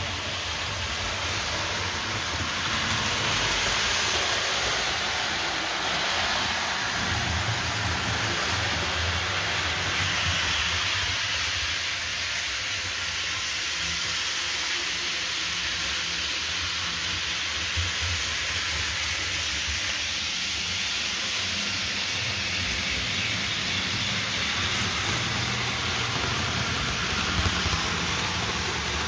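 Model trains running on the layout's track: a steady rumble and hiss of small wheels on rail and the locomotive motors, with a brief click near the end.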